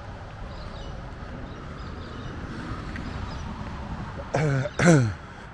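Steady rumble of passing traffic on a nearby freeway, swelling a little midway. Near the end, two short voice sounds cut in, the second falling in pitch.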